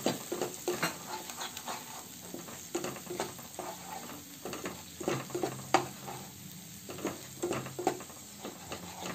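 Wooden spatula stirring and scraping a thick spiced paste of mashed green banana peel around a non-stick kadai, in an uneven run of scrapes and knocks about two a second, with oil sizzling under the food.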